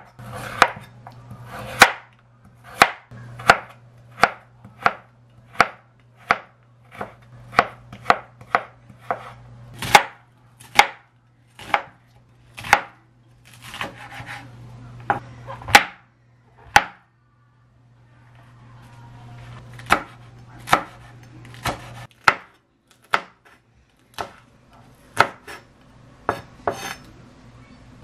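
Chef's knife chopping carrot and onion on a wooden cutting board: a run of sharp knocks as the blade meets the board, about one to two a second and unevenly spaced, with a short pause a little past halfway.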